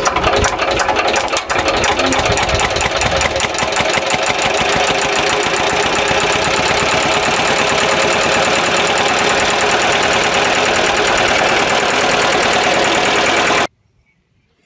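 Small 8 HP diesel engine just after starting: separate firing knocks that quickly pick up speed, then a steady, fast, even running beat. It cuts off suddenly near the end.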